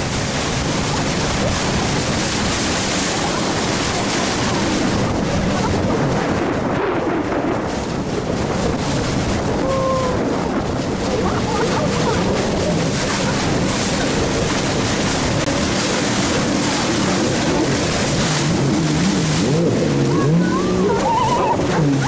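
Small motorboat running fast across choppy sea: a steady rush of engine, wind and water against the hull.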